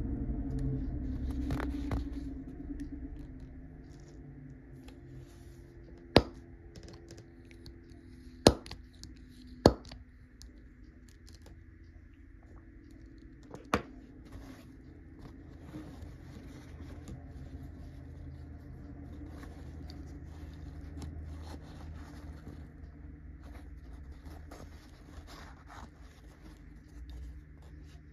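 Fountain pen parts being handled on a cutting mat: sharp clicks as the plastic and metal pieces of the piston mechanism are set down, three close together and a fourth a few seconds later. Soft scraping and paper towel rustling follow as the parts are handled and wiped.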